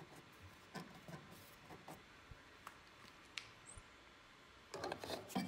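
Faint handling noise: scattered light clicks and soft rubbing, with a louder rustle about five seconds in.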